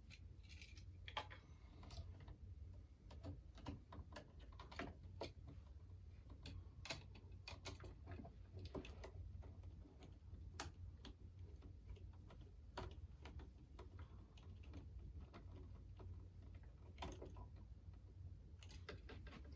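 Faint, irregular small clicks and ticks of wires and a screwdriver being worked on the terminal screws of a wall light switch, as the wires are connected.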